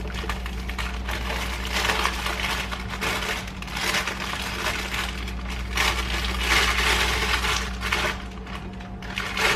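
Rice Krispie treats crackling and crunching in irregular bursts as they are handled in the pan, over a steady low hum.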